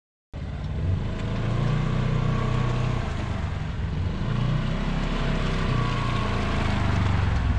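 Truck engine running steadily, a low rumble with a faint hiss above it, starting just after the opening moment.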